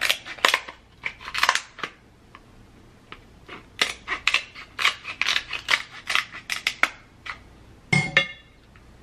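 Kitchen scissors snipping through the shell of a cooked king crab leg: bursts of sharp, crisp snips, a few near the start and a dense run of cuts in the middle, with one louder crack about eight seconds in.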